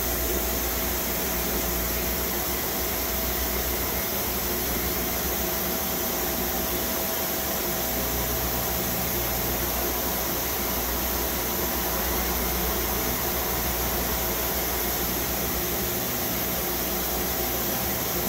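Nakamura-Tome WT-300 CNC turning/milling center running: a steady machine hum and hiss with a thin, steady whine over it.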